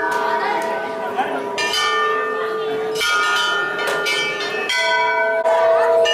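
Large brass temple bells struck again and again, a fresh strike every second or so, the long ringing of several bells of different pitch overlapping.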